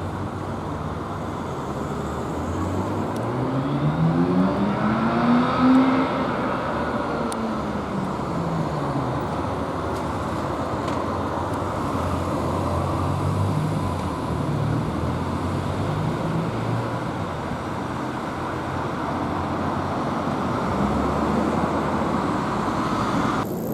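Road traffic noise, with one motor vehicle's engine revving up to a peak about six seconds in and then dropping away. Another engine rises briefly near the end.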